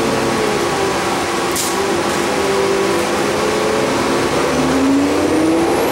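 Transit bus interior while riding: steady engine and road noise with a droning hum. Near the end the hum and a high whine rise in pitch. A brief hiss comes about a second and a half in.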